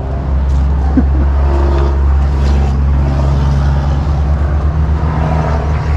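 A motor vehicle's engine running close by, a steady low drone.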